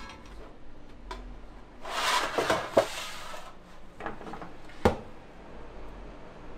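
Kitchen work sounds: a second-and-a-half of rustling or scraping, with a few sharp clinks and knocks of utensils and dishes, the loudest about three and five seconds in.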